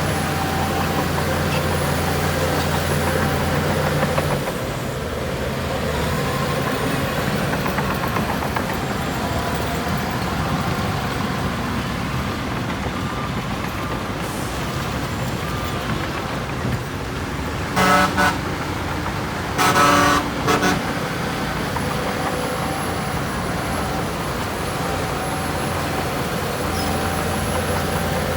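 Heavy diesel engines of earth-moving machinery running steadily, the low drone easing a little about four seconds in. Past the middle a vehicle horn toots briefly, then sounds again about two seconds later, longer and followed by a short toot; the horn toots are the loudest sounds.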